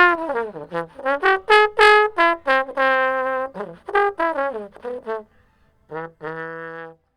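Slide trombone played solo: a phrase of short notes, some sliding down between pitches, with a held note about three seconds in. After a brief pause it ends on a held low note that stops just before the end.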